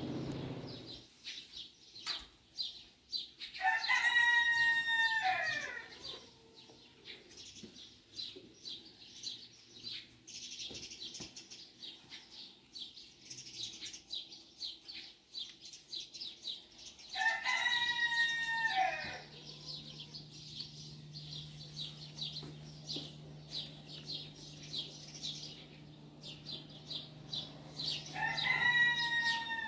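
A rooster crowing three times, each crow about two seconds long, rising, held, then falling: about four seconds in, again near the middle, and once more at the end. Small birds chirp throughout.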